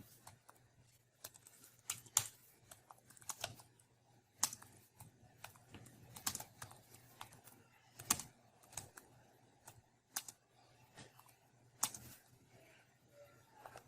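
Typing on a computer keyboard: irregular keystroke clicks in uneven runs with short pauses between them.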